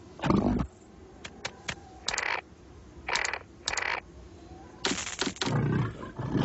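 A string of short cartoon sound effects: a few sharp clicks and several brief swishy bursts with quiet gaps between them, and a longer burst near the end.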